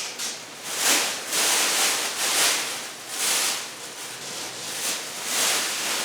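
Packaging rustling and crinkling in a run of uneven swells as the parts of a flat-packed office chair are unwrapped.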